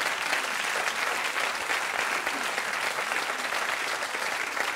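Studio audience applauding steadily, a dense patter of many hands clapping.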